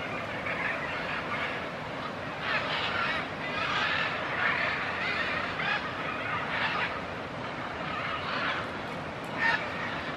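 Military macaws squawking, short harsh calls repeated throughout, with one louder call near the end.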